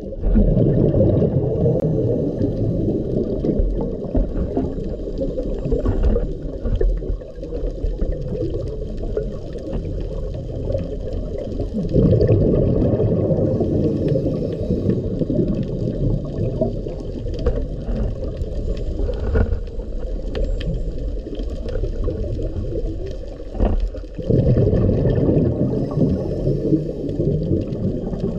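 Muffled underwater rumble and gurgling of moving water, picked up by a camera underwater on a coral reef. It swells louder three times, about twelve seconds apart, with faint scattered clicks over it.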